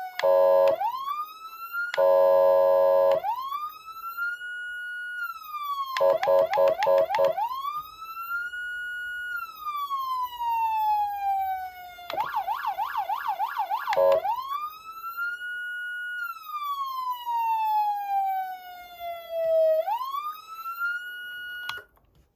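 Electronic police siren from a CODE3 MICRO COM2 siren amplifier. A wail climbs quickly and falls slowly, over and over, broken by short bursts of a buzzy horn tone and a stretch of fast warbling yelp. It cuts off suddenly near the end.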